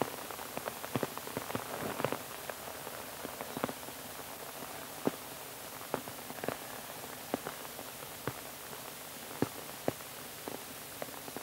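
Rain falling on umbrellas and rain jackets: scattered, irregular sharp drip taps over a steady hiss.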